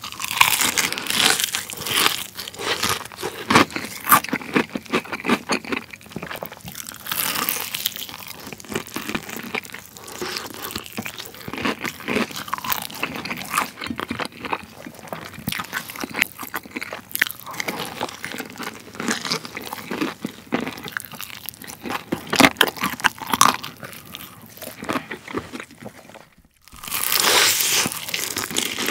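Close-miked crunching and chewing of a crispy fried chicken drumstick's batter: dense crackles from bites and chewing. It stops briefly near the end, then comes back with a loud crunchy bite.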